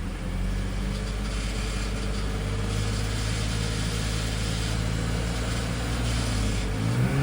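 BMW M54 3.0-litre straight-six idling warm, with a light chattering rattle from a cracked torque-converter drive plate (flexplate), which makes this noise at hot idle.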